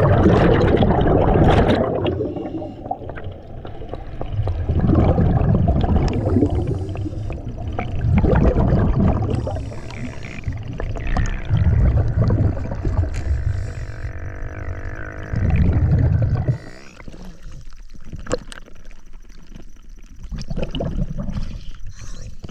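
Scuba diver breathing underwater: a rumble of exhaled bubbles from the regulator about every three to four seconds, five times, then quieter for the last few seconds.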